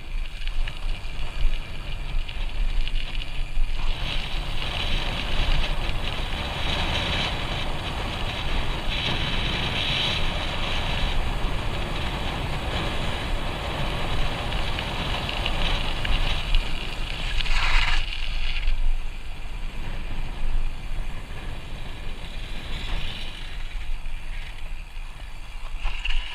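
Wind buffeting the microphone of a BMX bike coasting fast down a steep hill, with the tyres rolling on concrete pavement.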